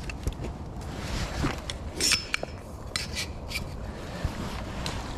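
Small metallic clicks and clinks of a spinner's treble hook being worked free from a landed trout, the loudest about two seconds in with a brief ring, over a steady low rush of background noise.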